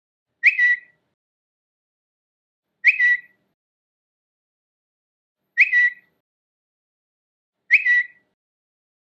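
Twitter notification sound: a short, high, bird-like chirp that sweeps up and then holds briefly, played four times about two to three seconds apart.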